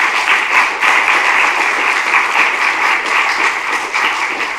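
Audience applauding at the end of a lecture: many hands clapping, dense and steady.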